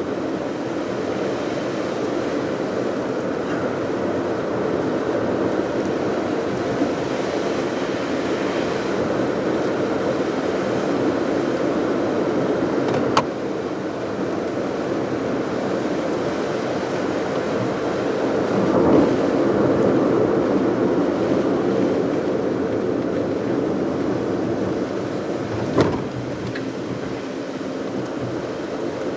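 Steady road noise of a car being driven, mostly tyre rumble from old studless winter tyres along with the running engine. It swells briefly past the middle, and there are two sharp clicks, one about halfway through and one near the end.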